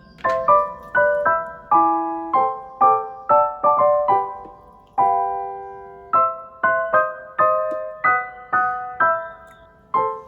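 Background music: solo piano playing a gentle melody in chords, about two notes a second, with a couple of longer held chords.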